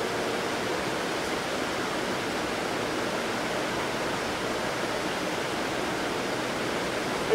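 Steady, even rushing noise with no pitch or rhythm, unchanging throughout.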